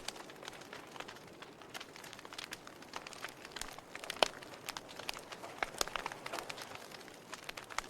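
Wood fire crackling in a fireplace: a soft steady hiss with many sharp irregular pops and snaps, one louder pop about four seconds in.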